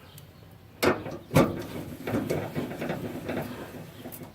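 Hand-tool work on a pickup tailgate's latch and handle as it is fastened back in place: two sharp knocks, then a couple of seconds of irregular clicking and rattling as the fasteners are tightened.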